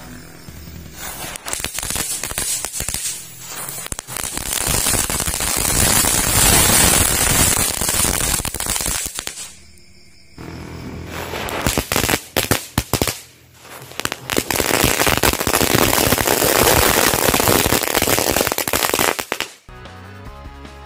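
A cluster of dino egg crackling firecrackers going off: dense, rapid popping and crackling that starts about a second in, drops away briefly around ten seconds in, then picks up again and stops shortly before the end.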